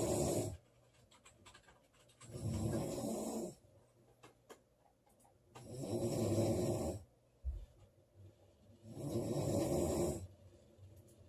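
A woman snoring loudly, a pitched snore every three to four seconds, each lasting a second or so: the end of one at the start and three more after it. Faint clicks and a soft low thump fall in the quiet gaps between snores.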